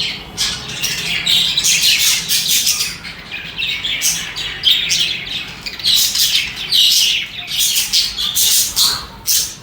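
Budgerigars chirping and chattering in quick, overlapping calls, with a brief lull about three seconds in.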